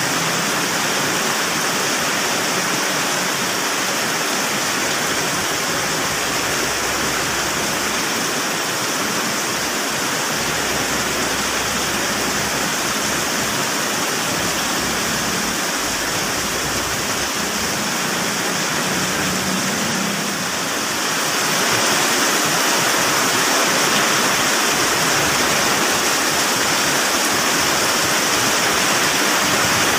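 Heavy rain pouring steadily onto a street, a dense even hiss that grows slightly louder about two-thirds of the way through.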